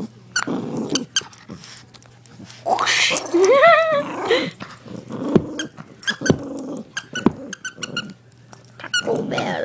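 Dog growling in play in rough bursts, with a louder stretch about three seconds in that holds a rising-and-falling whine-like call. Scattered sharp clicks between the growls.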